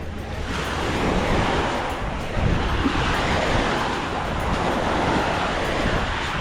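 Sea waves washing up on a sandy beach, a steady rush that swells and eases, with wind rumbling on the microphone.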